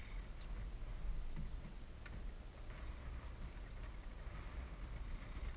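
Low wind rumble on the camera's microphone aboard an open boat, with a couple of faint clicks.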